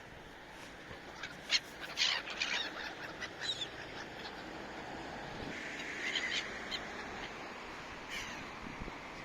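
Gulls calling in short, harsh cries, several bunched together a second or two in, another a few seconds later, and a falling cry near the end, over a steady background hiss.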